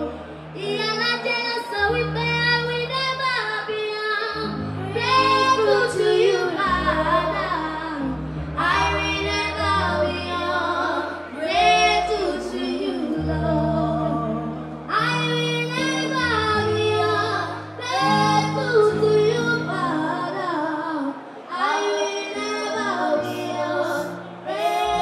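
Two young girls singing a song together into microphones, amplified through a PA, over musical accompaniment with a deep bass line that changes note every second or two.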